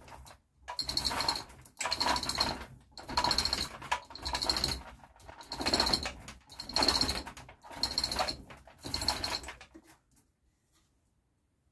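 Hand chain hoist being worked in about eight pulls, its chain rattling through the block while the engine hangs from it; the pulling stops near the end.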